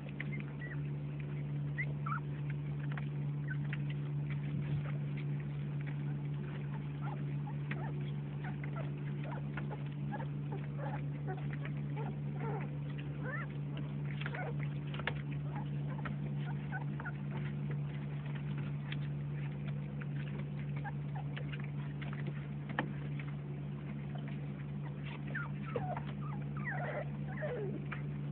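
Young puppies squeaking and whimpering in many short high calls while they eat dry kibble, the calls crowding together near the end, with scattered small clicks, over a steady low hum.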